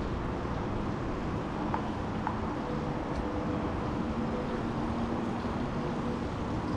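Steady low background rumble with faint humming tones, and two light clicks about two seconds in.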